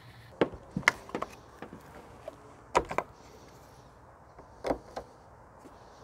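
Scattered sharp clacks and knocks, several in quick pairs, from hands at work in a car's open engine bay.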